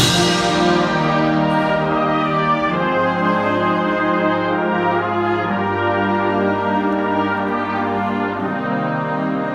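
Concert band of woodwinds, brass and percussion playing sustained chords. A bright loud wash at the start fades over the first second or so, and a long low bass note is held through the middle.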